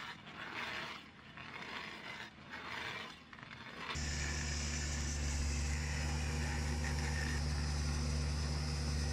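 Irregular scraping and crunching noise for about four seconds, then an abrupt change to a steady engine running at constant speed.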